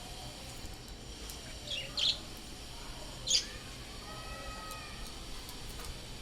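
Birds calling: a pair of short sharp chirps about two seconds in and a louder single call just past three seconds, over a steady low background hum.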